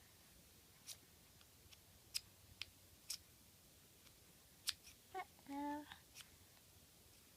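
A few sharp, separate plastic clicks and taps as a child fiddles with a harness buckle, trying to fit its two halves together. A short baby's voice sound comes about two-thirds of the way through.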